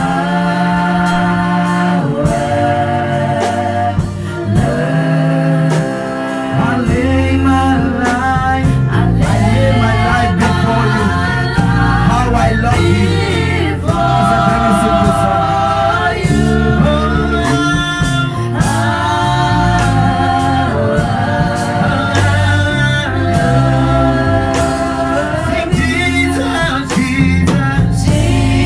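Gospel worship song: sung vocals over a full band with bass and drums.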